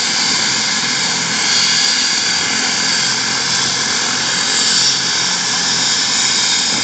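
Helicopter running steadily on the ground, not yet lifting off: an even, loud rushing noise with a thin high whine.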